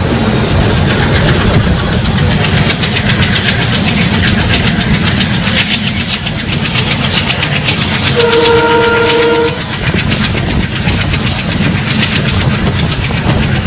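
WDM 3A ALCO diesel locomotive hauling the train, heard from aboard: its 16-cylinder ALCO 251 engine runs under load with rapid wheel clatter on the rails. About eight seconds in, a train horn sounds one blast lasting about a second and a half.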